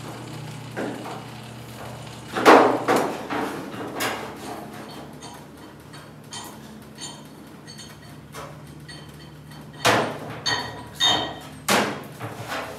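Scattered sharp metal clanks and knocks: one loud strike about two and a half seconds in, another near four seconds, then a quick cluster of four or five near the end, some of them ringing briefly. A low steady hum sits under the first part.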